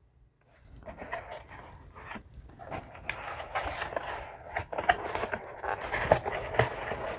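Cardboard collectible box being handled and pulled open: a run of scraping and rustling with small knocks, starting about half a second in and getting louder toward the end.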